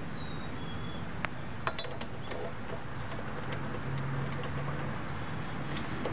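A few light metal clicks as head bolts and a socket extension are handled and started by hand into a Briggs & Stratton OHV cylinder head, over a steady low background hum.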